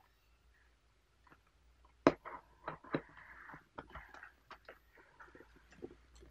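Plastic postal mailer bag crinkling and rustling as hands turn it over and work at its sealed edge. A sharp click comes about two seconds in, followed by scattered small clicks and taps.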